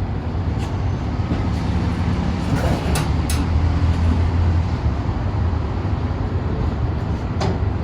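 Steady low rumble of background motor or traffic noise, with a few sharp clicks and knocks: a pair about three seconds in and another near the end, from the cage's pull-out parts being handled.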